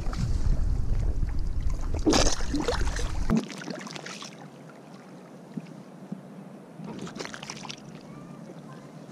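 Stingray splashing in shallow water at the water's edge, with heavy wind rumble on the microphone for the first few seconds. After the rumble cuts off suddenly, small waves lap on the sand, with another brief splash about seven seconds in.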